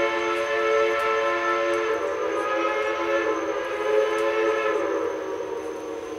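Steam locomotive whistle blowing one long, sustained blast that drops slightly in pitch about two seconds in, then fades away over the last second or two.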